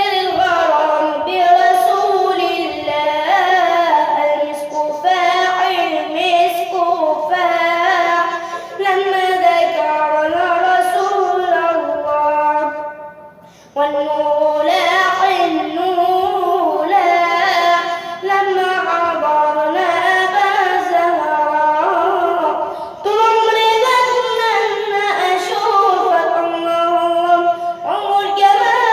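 A high singing voice performing an Egyptian religious nasheed in praise of the Prophet, in ornamented Arabic style with long wavering, melismatic lines. It breaks off briefly about halfway through, then resumes.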